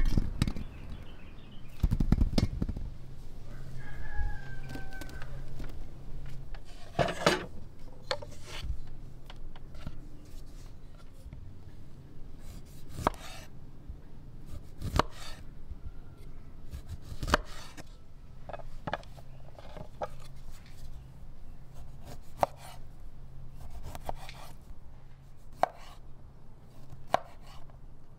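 Knife slicing small lemons into rounds on a wooden cutting board: separate sharp knocks of the blade meeting the board every second or two, with a few heavier, lower knocks about two seconds in.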